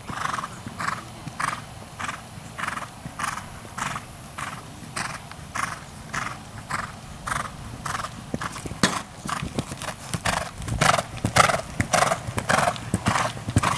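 Horse cantering on soft arena footing: a steady beat of hoofbeats, a little under two strides a second, growing louder about ten seconds in as the horse comes close.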